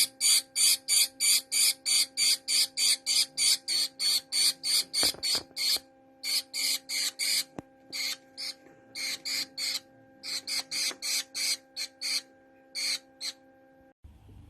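A Gouldian finch giving short, high chirps in fast succession, about four a second, then in broken runs with pauses, over a steady low hum.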